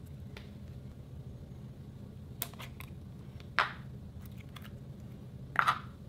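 Slime being squeezed and pressed between fingers, giving three short sharp pops from trapped air, the loudest in the middle and near the end, over a low steady hum.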